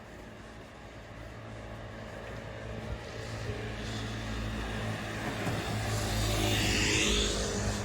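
A car approaching and passing close by, growing steadily louder, with its engine hum and tyre noise peaking near the end.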